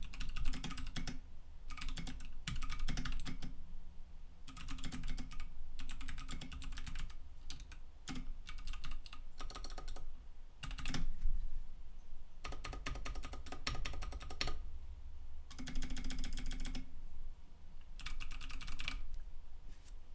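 Mechanical keyboard with lubed Kailh BOX Pink clicky switches being typed on in fast bursts of key clicks with short pauses between. The click is one that the lubricant has made slightly quieter and smoother, as the owner judges it.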